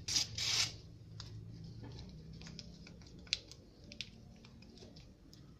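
Sheet of paper being handled: a loud rustle as it is picked up, then soft crinkles and light clicks and taps as it is folded by hand, with one sharper click about three seconds in.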